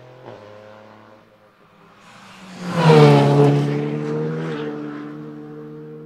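Rally cars at full throttle. Just after the start an engine changes up a gear and fades away. About three seconds in a car passes close, loud, its pitch dropping as it goes by, and its engine then holds a steady note as it draws away.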